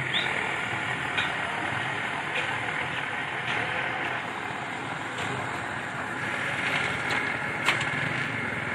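Steady street noise of passing road traffic, with a few light clicks now and then.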